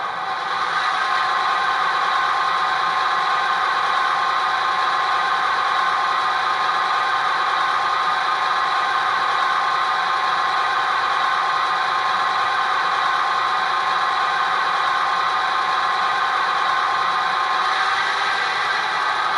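Model locomotive sound decoder playing an EMD 567 V12 diesel prime mover through the model's small onboard speaker, running steadily in a raised throttle notch, stepping up slightly in loudness about half a second in. With drive hold set at zero, the engine is being notched up while the locomotive stands still.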